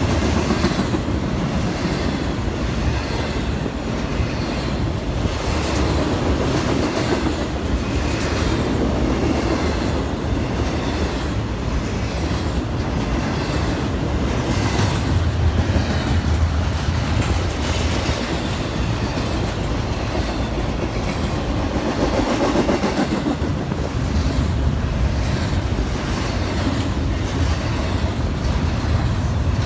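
Cars of a long intermodal freight train rolling past close by, with a steady rumble and the clickety-clack of wheels passing over rail joints every second or two.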